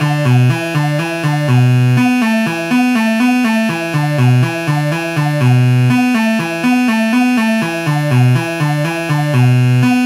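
Behringer Crave analogue synthesizer playing a looping sequenced pattern of short stepped notes in the bass and low-mid range. A longer low note comes around about every four seconds as the pattern repeats.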